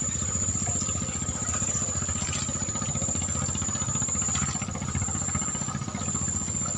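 A small engine running steadily with a rapid low throb, over a thin, steady high-pitched whine.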